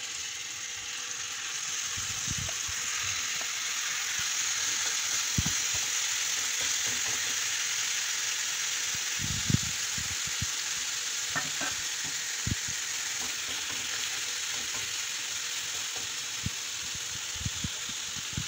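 Diced, spice-marinated chicken breast sizzling in hot oil in a non-stick frying pan: a steady frying hiss that builds over the first few seconds, with occasional light knocks.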